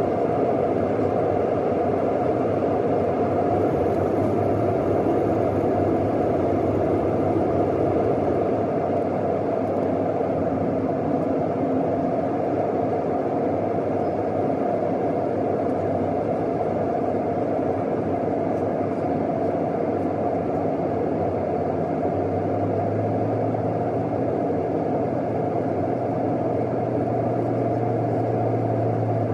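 Steady cabin noise of a Southwest Airlines Boeing 737 in flight, the engines and the rushing airflow heard from inside at a window seat over the wing. A low hum comes up more strongly about three-quarters of the way through.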